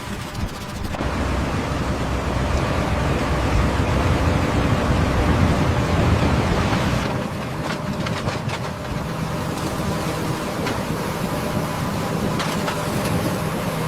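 Heavy construction machinery running steadily: a low engine rumble under a broad hiss, which grows louder about a second in.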